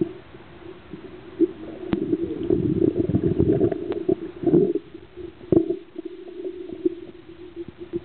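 Scuba diver's exhalation through the regulator: a bubbling rumble from about two seconds in, lasting about three seconds, over a steady low hum with scattered sharp clicks.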